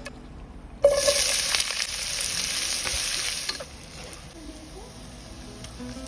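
Sliced onions land in hot oil in a nonstick pot about a second in and sizzle loudly. The sizzle settles into a quieter, steady frying after about three seconds while they are stirred with a silicone spatula.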